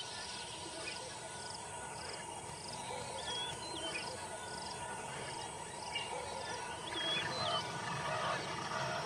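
Wild bird ambience: several birds calling, with short whistled glides and a high note repeated about twice a second for the first few seconds. Lower calls join about seven seconds in.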